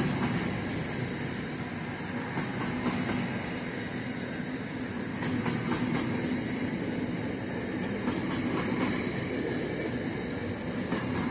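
Freight train of double-stacked container wagons rolling past: a steady rumble of wheels on the rails, with groups of sharp clicks from the wheels every few seconds.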